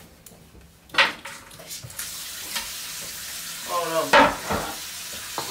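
A sharp clack about a second in, then water running steadily from a kitchen tap, a hiss that starts abruptly at about two seconds, with a few utensil clinks over it.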